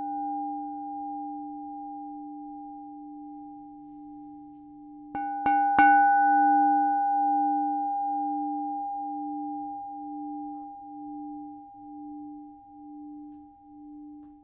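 Crystal Tones 8-inch tall pink Himalayan salt crystal singing bowl, tuned to D+20, ringing with a pure sustained tone and fading. About five seconds in it is struck three times in quick succession with a mallet, then rings on and dies away with a slow pulsing wobble.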